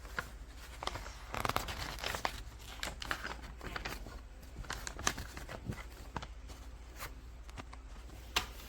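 Irregular rustling, crinkling and light clicks, as of things being handled, over a steady low hum.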